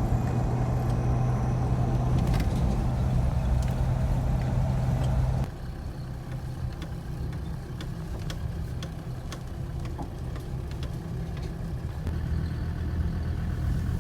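Vehicle engine running steadily on the move, a low hum. It drops suddenly to a quieter level about five seconds in and grows louder again near the end.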